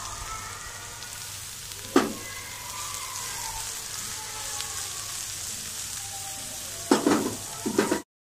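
Sliced onions frying in ghee on a flat tawa, a steady sizzle, with a spatula scraping and striking the tawa about two seconds in and several times near the end.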